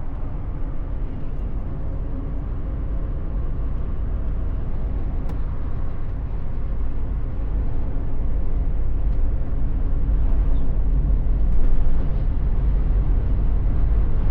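Engine and road noise of a 1991 Volkswagen Vanagon Syncro heard from inside the cabin while driving, a steady low rumble that grows gradually louder.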